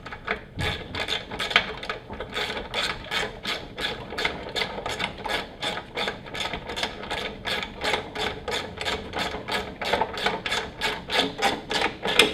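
Socket ratchet wrench clicking in quick, even strokes, about four a second, as it runs in the 14 mm bolts that mount a pressure washer pump to the engine.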